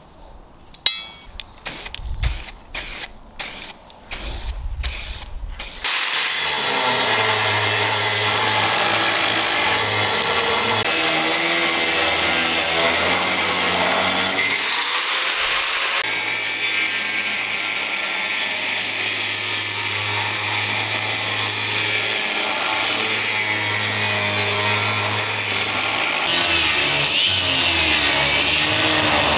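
Angle grinder with a cut-off disc running steadily and cutting through flattened spring steel, starting about six seconds in. Before it, a series of short, evenly spaced bursts.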